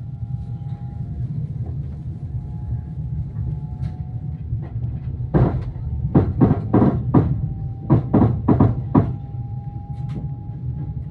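Passenger train running with a steady low rumble, and about halfway through a run of about nine loud clattering knocks over some four seconds as the wheels pass over track joints.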